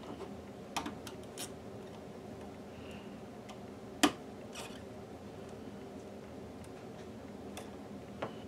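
Faint room tone with a few small, sharp clicks and taps of a soldering iron and a screwdriver against a glass fuse and circuit board while the fuse is soldered in; the sharpest click comes about four seconds in.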